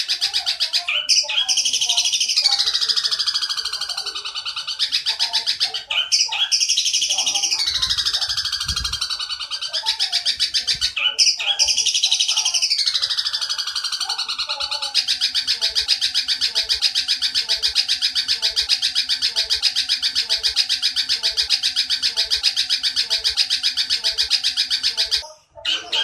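Bird-song training track (masteran) for long-tailed shrikes. Three repeated phrases of high, falling squealing calls come first. Then about ten seconds of fast, unbroken chatter, the long tree-sparrow 'nyerecet' fill, which breaks off briefly near the end.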